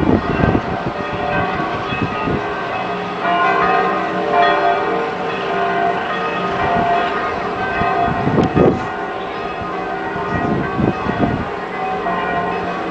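Big church bells of Florence Cathedral's bell tower ringing at close range: several bells pealing together in an uneven, overlapping peal. Fresh strokes come every second or so, and their tones ring on between them.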